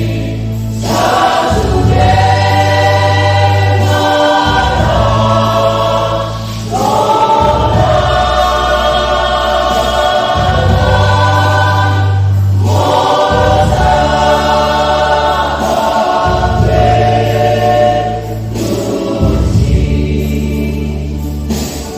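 A church choir singing a Batak Toba hymn in phrases a few seconds long, over an accompaniment with long, steady low bass notes.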